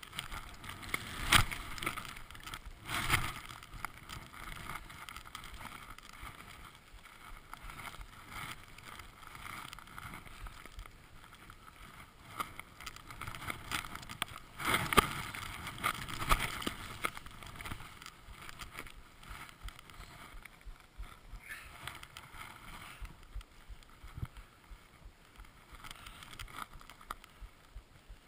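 Skis hissing and swishing through deep powder snow during a run, with a few sharp knocks scattered through it, the loudest about a second in and about halfway through.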